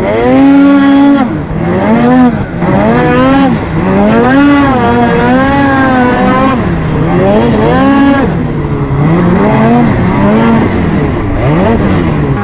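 Snowmobile two-stroke engine being revved up and down over and over, its pitch rising and falling about once a second.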